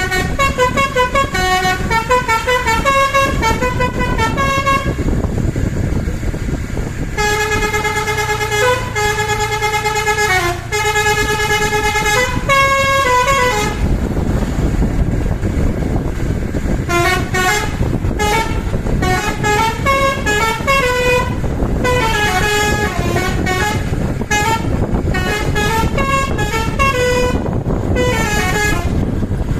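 Telolet basuri, a bus's musical multi-trumpet air horn, playing a melody. It opens with a run of quick notes, then plays longer held notes, pauses for a few seconds, and goes on with more runs of notes. Under the horn runs a steady loud rumble.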